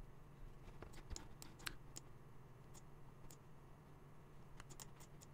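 Near silence: room tone with a faint hum and a few scattered faint clicks.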